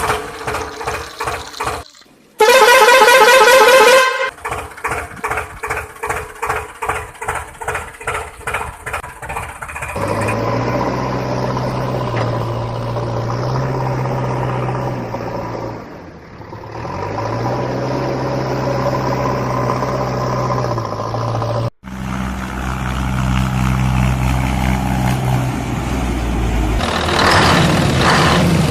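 A string of heavy-vehicle sounds: a loud horn blast lasting under two seconds near the start, then a rhythmic chugging of about two beats a second, then engines running steadily with shifts in pitch, cut off abruptly once and resuming lower.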